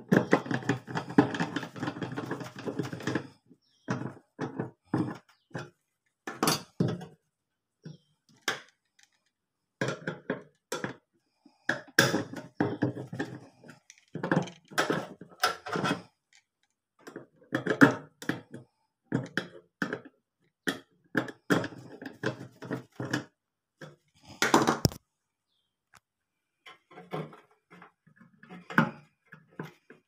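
Clicks, knocks and scraping of a screwdriver and metal parts against a microwave oven's sheet-metal base while a new turntable motor is fitted. A scraping rattle at the start gives way to many separate clicks and knocks.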